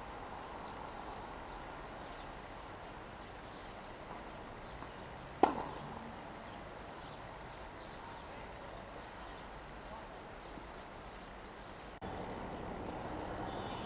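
Tennis racket striking the ball once, a sharp, loud pock about five seconds in, over steady outdoor background noise that gets louder near the end.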